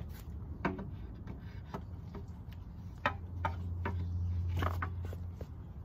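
Teak chair parts knocking and clicking against each other as they are handled and fitted together by hand: a scatter of light wooden knocks, the sharpest about three seconds in.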